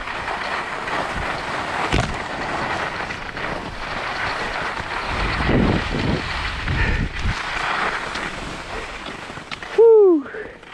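Wind rushing over a GoPro's microphone as skis slide down a snowy run. Near the end comes a short, loud yelp that rises and falls as the skier goes over a jump he did not know was there.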